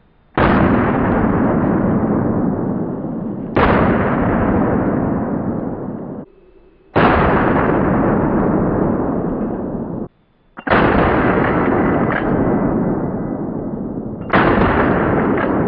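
A 12-gauge pump-action shotgun firing five times, about three to four seconds apart. Each blast trails off slowly over several seconds and is cut off sharply by the next one.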